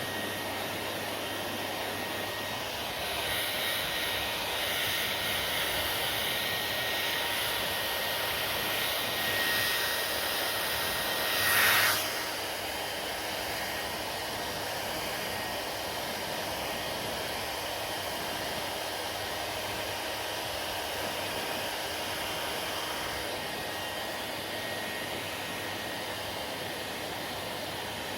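Hair dryer blowing steadily, a rushing noise with a faint high whine. It gets louder for several seconds in the first half, with one short, louder rush of air just before the middle.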